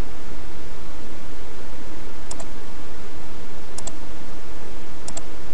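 Computer mouse clicked three times in quick pairs, about a second and a half apart, over a steady loud hiss.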